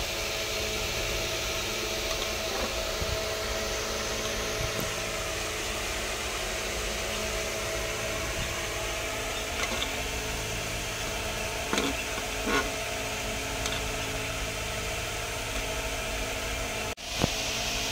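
Steady even rushing noise with a faint hum, and a few soft clicks.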